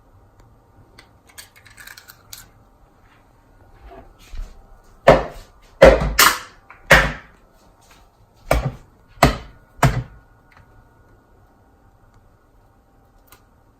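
An egg knocked hard against the rim of a mixing bowl to crack it: about seven sharp knocks, some single and some in quick pairs, in the middle stretch.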